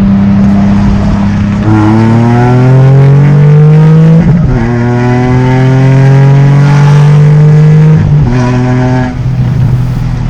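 Car engine accelerating hard: its pitch climbs steadily, drops at a gear change about four seconds in, then climbs again before it eases off about eight seconds in.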